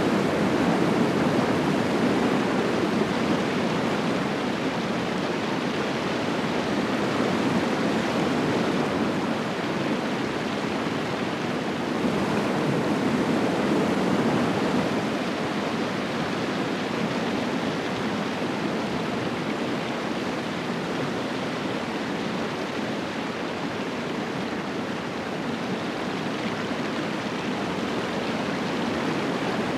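River rapids rushing over rocks in a shallow, stony river: a steady, unbroken rush of water.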